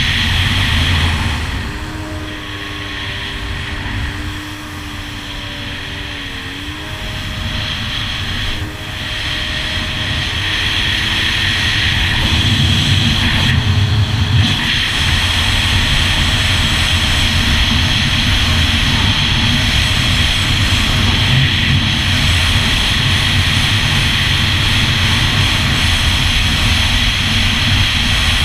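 Yamaha GP1200R personal watercraft's two-stroke three-cylinder engine running under way. It eases off about a second and a half in and runs slower with a steady pitched note, then opens up again around eight seconds and runs hard and steadily to the end, with water and wind rush mixed in.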